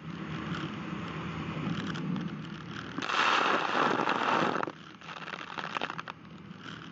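Small armoured patrol boat running fast through waves: steady engine and hull noise with rushing water. About three seconds in, a loud rush of spray sweeps over the bow and close to the microphone for about a second and a half, followed by crackling of water droplets.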